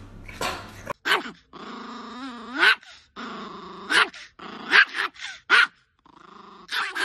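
A long-haired chihuahua growling and grumbling in drawn-out, wavering stretches, broken by several sharp yaps.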